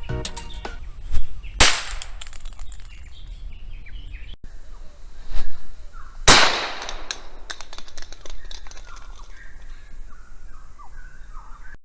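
Homemade sound grenade packed with toy cap-gun caps going off twice, a few seconds apart: each one a single sharp bang with a short fading tail. Birds chirp faintly in the background.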